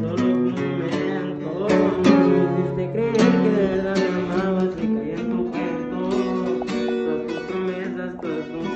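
Background music: a guitar-led song with singing, plucked and strummed guitar notes running steadily.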